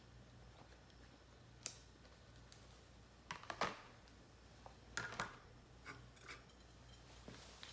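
Sparse light clicks and small taps, a few scattered single ones and short clusters, over a faint low hum.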